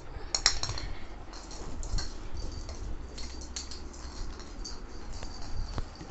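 Labrador puppy's claws clicking and skittering irregularly on a tile floor as it runs and jumps about.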